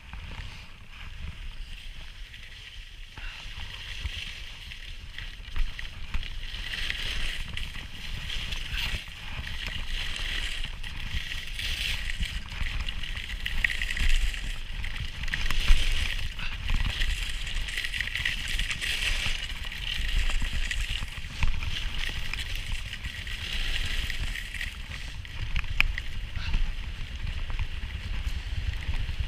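Skis scraping and carving on packed snow at speed, a rough hiss that swells and fades every few seconds, over the low rumble of wind buffeting the microphone.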